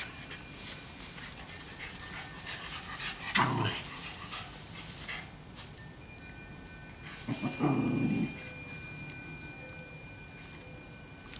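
A Jack Russell Terrier mix and a Norwich Terrier puppy play-fighting, with two short low-pitched dog vocal sounds about three and a half and seven and a half seconds in. Brief high ringing notes come and go throughout.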